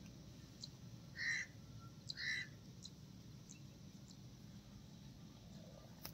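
A bird calling twice, two short calls about a second apart, over faint outdoor background noise.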